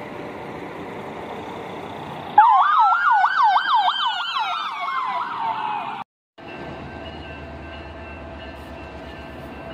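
An emergency vehicle siren sounds for about three and a half seconds, a fast up-and-down yelp over a slower sweep that rises and then falls, loud over steady road noise. It cuts off abruptly, and after a short break a steady low rumble follows.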